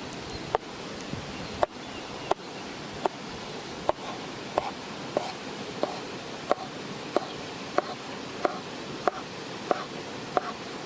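Kitchen knife chopping bacon on a wooden cutting board in a steady rhythm of about one and a half sharp knocks a second, over a constant rushing of running water.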